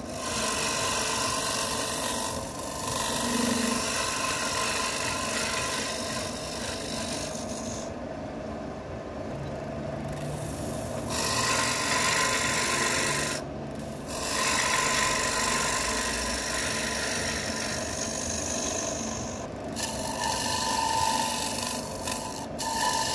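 Wood spinning on a lathe with a tool held against it: a continuous scraping noise that stops for a few seconds about eight seconds in, and briefly a few more times later.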